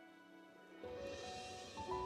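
Background music of held, sustained notes, quiet at first and louder from a little under a second in, when a rushing noise comes in under it.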